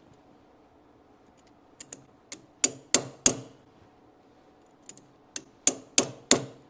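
Hammer tapping a metal rod home into a metal tool, in two quick runs of four or five sharp strikes about a third of a second apart with a short pause between.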